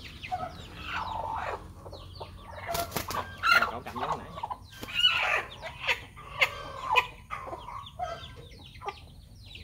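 Chickens calling in a run of short, rapid cries, with a few sharp knocks, the strongest about three seconds in.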